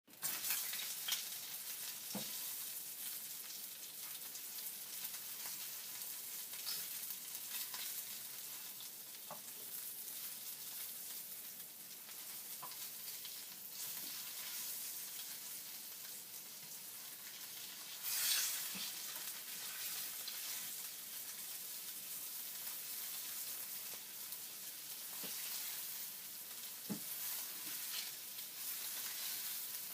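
Bacon frying: a steady sizzle with scattered pops and crackles, surging louder for a moment about eighteen seconds in.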